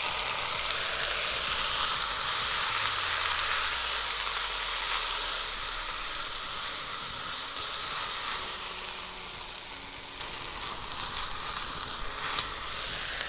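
A hot pan of fried vegetables and tomato paste sizzling and steaming steadily as milk is poured in to deglaze it, with a utensil stirring. The sizzle is strongest at first and eases a little as the liquid cools the pan.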